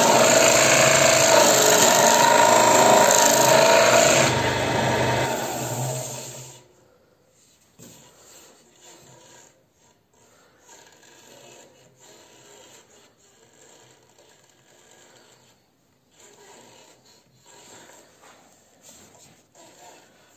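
A wood lathe spinning a wooden bowl while a gouge cuts its inside: a loud, steady scraping hiss of the cut over the lathe's running. It fades out about five to six seconds in, leaving only faint rustling and handling sounds.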